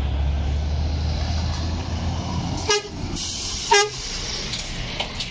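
Articulated lorry's diesel engine running as it approaches and passes close by, with two short toots of its horn about a second apart and a brief hiss between them.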